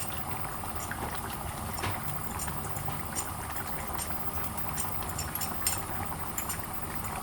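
Steady bubbling hiss of food cooking on the stove, with scattered small pops and ticks.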